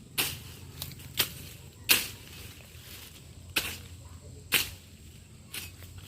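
A series of sharp, short strikes at an uneven pace, about eight in six seconds, over a steady low hum.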